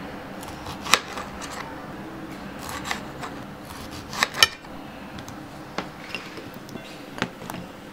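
Knife slicing a lemon into wedges on a ceramic plate, the blade knocking on the plate in a handful of sharp clicks. Near the end, wedges are set into a ceramic bowl with a couple more clicks.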